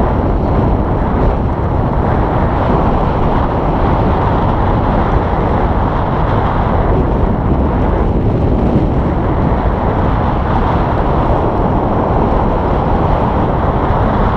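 Strong wind buffeting the camera microphone: a loud, steady low rumble.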